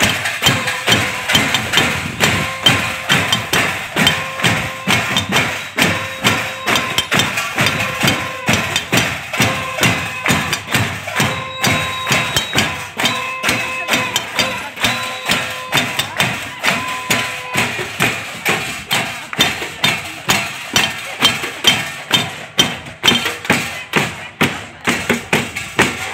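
A fast, steady beat of sharp knocks, about two to three a second, hands or sticks beating out a rhythm. Over it for the first two-thirds, voices chant or sing short phrases on one repeated held note, which then stops while the beat goes on.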